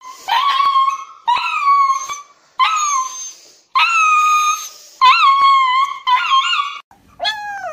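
A black-and-white husky-type dog howling and crying while restrained for an injection: a string of about seven high, drawn-out cries, roughly one a second, several of them wavering in pitch.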